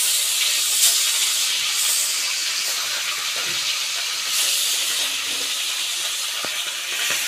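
Whole tere fish frying in hot mustard oil in an aluminium kadai: a steady, high sizzling hiss with occasional small pops.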